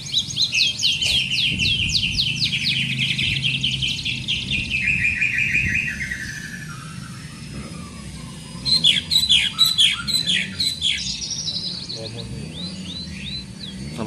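Caged small parrots chirping: quick runs of high, falling chirps for the first half, a lull, then another burst of sharp chirps about nine seconds in.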